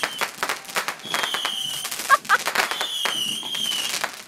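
Fireworks going off in quick succession: many sharp pops and crackles, with a few short high whistles from fireworks in flight, each wavering slightly downward.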